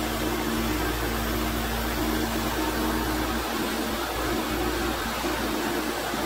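Portable bandsaw mill's 14 hp petrol engine running under load while its blade cuts lengthwise through a Douglas fir log, a steady machine noise with no break.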